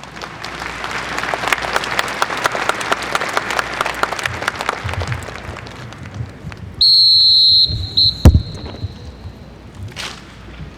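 Applause, then one long high whistle blast about seven seconds in, followed by a single sharp knock.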